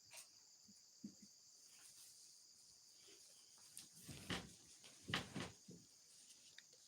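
Faint steady chirring of crickets at night, with a few short close knocks and rustles, the loudest two about four and five seconds in.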